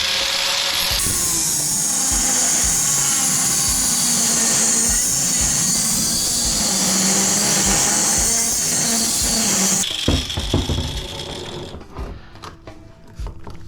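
A power tool cutting through metal, running steadily for about ten seconds with a slight wavering in pitch, then stopping. A few seconds of clatter and scattered knocks follow.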